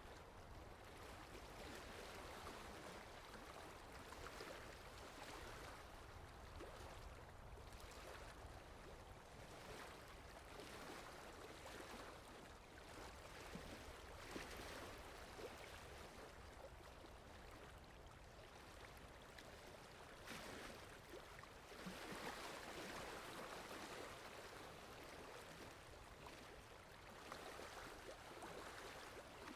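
Faint water lapping with wind: a steady wash of noise that swells and eases every few seconds, with small splashes and ticks here and there.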